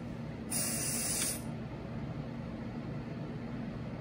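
A single one-second hiss of smoke-detector test aerosol spray from a can, starting about half a second in.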